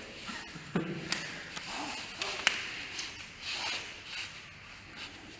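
Forearms and hands slapping and tapping against each other in a Wing Tsun Lat Sao arm-contact drill, with a few sharp slaps standing out over the rustle of clothing and feet shuffling on the mat.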